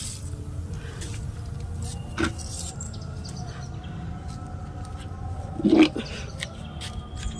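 Outdoor background with a steady low rumble, broken by a few short knocks and rustles, the loudest a brief sound about six seconds in.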